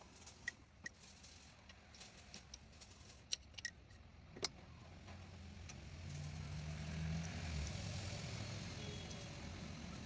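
Light metallic clicks and taps of tools and parts handled on a bare engine block. About halfway through, a low motor rumble swells and then slowly fades.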